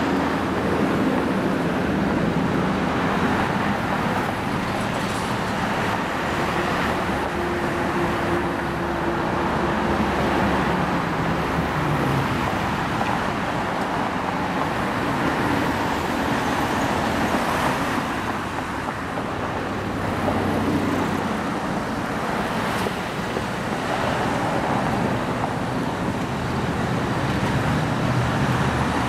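Steady road traffic noise from slow or stopped rush-hour cars and buses, with engine hums rising and falling as vehicles idle and move.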